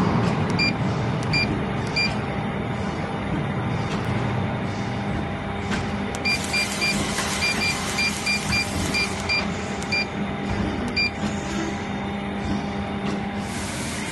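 Temperature controller keypad beeping with each button press: three single beeps, then a quick run of about a dozen as the set point is stepped down, over a steady machinery hum.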